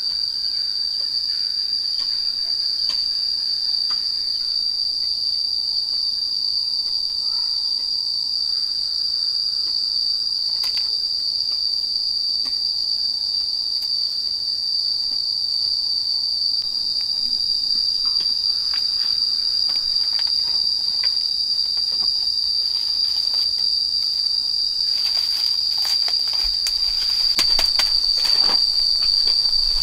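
Loud, steady high-pitched drone of insects, holding one pitch without a break. Near the end comes a run of sharp clicks and knocks.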